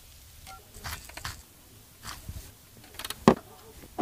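Short clicks and knocks of metal kitchen utensils against a steak on a wooden cutting board, coming in small clusters, the loudest a sharp knock about three seconds in.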